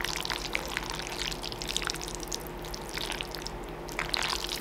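Water running steadily, a continuous rush with small crackling ticks through it.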